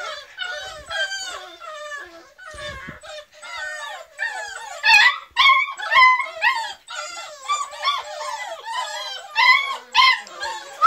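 A litter of beagle puppies whining and yelping together: many high, wavering cries overlapping without a break, with several louder yelps along the way.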